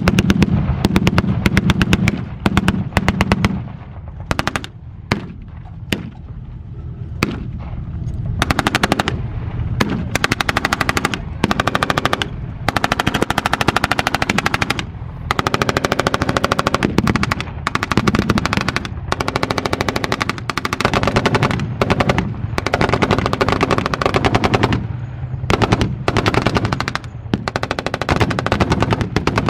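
Machine guns firing blanks in long rapid bursts, with a lull about four to eight seconds in. A steady low rumble of tank engines runs beneath.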